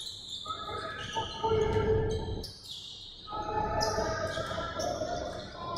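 Basketball game sounds in a large gym: a ball bouncing on the hardwood floor, with players' voices calling out and echoing through the hall.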